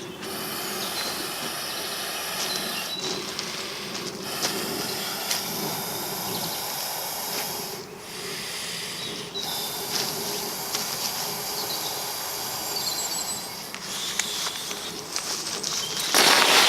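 Steady hiss that breaks off and starts again abruptly several times, with a few short high chirps partway through; loud crackling rustle near the end.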